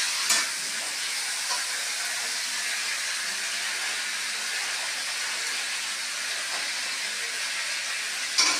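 Steady sizzling hiss of food cooking in a wok on a gas stove, with a light click just after the start and a louder one near the end.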